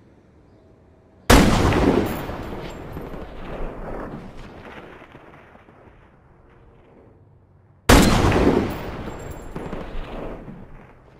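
Two rifle shots from a scoped sniper rifle, about six and a half seconds apart. Each is a sharp, loud crack followed by a long echoing tail that dies away over about three seconds.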